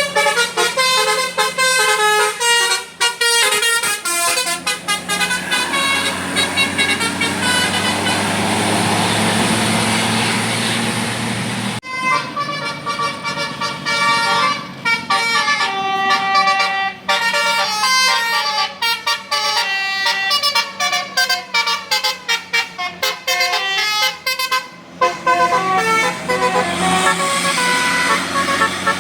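Indonesian bus telolet horn, a multi-tone bus horn playing quick melodic runs of short notes that step up and down in pitch. About twelve seconds in the sound breaks off sharply and another run of horn notes starts.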